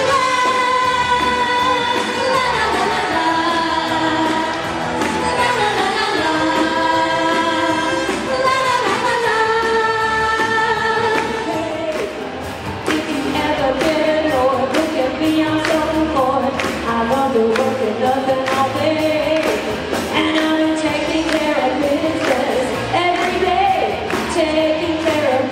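Live singers performing into microphones over music, holding long sung notes. About halfway through, a steady beat comes in under the singing.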